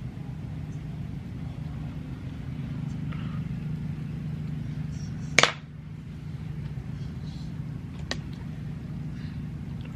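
A steady low hum, with one sharp knock about five seconds in and a lighter tick near eight seconds.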